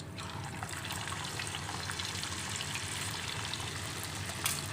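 Pork chop deep-frying in a pan of hot oil: a steady sizzle with small crackles.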